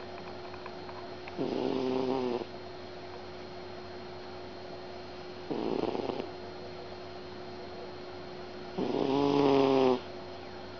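A cat snoring: three snores about three and a half seconds apart, each lasting about a second, the last one the loudest. A faint steady hum runs underneath.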